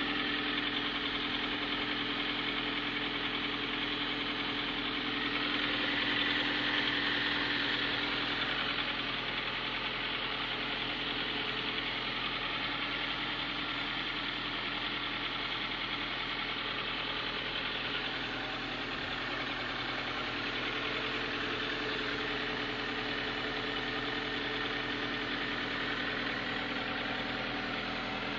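VAZ-21126 1.6-litre 16-valve four-cylinder engine idling cold, with the piston knock of its Avtramat pistons.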